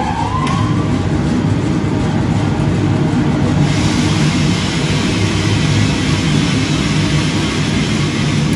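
Commercial drum coffee roaster running with a steady low motor and blower hum. About three and a half seconds in, a dense rushing hiss starts and holds: the roasted beans being dropped from the drum into the cooling tray at the end of the roast.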